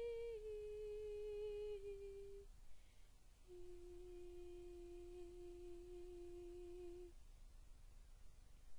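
A solo soprano voice singing softly and unaccompanied: a sustained note that steps down twice in pitch and stops about two and a half seconds in, then, after a short pause, one long lower note held for about three and a half seconds.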